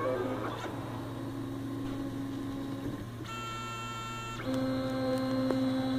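Stepper motors of a home-built 3D printer whining as the print head and bed move. The whine holds a few steady pitches that switch every second or two, over a steady low hum.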